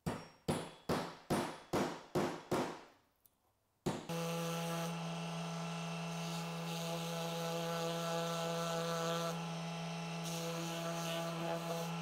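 About eight sharp metallic taps in quick succession, each ringing briefly: a 1/4-20 nut being tapped down into a plywood knob's hole on a threaded bolt. About four seconds in, a handheld power tool clicks on and runs steadily with a strong hum.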